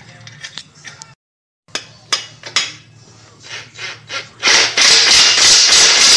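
Ratchet wrench working on an exhaust flange bolt: scattered clicks and knocks, then from about four and a half seconds in a loud, fast run of ratcheting clicks as the bolt is run down tight.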